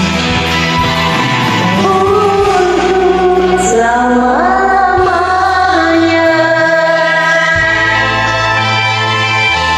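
Pop ballad karaoke backing track with a woman singing drawn-out notes whose pitch glides up and down.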